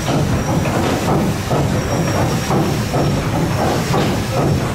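Paddle steamer Waverley's three-cylinder diagonal triple-expansion steam engine running under way, its cranks and rods turning. It makes a steady rhythmic clanking and hissing, about two beats a second, over a low rumble.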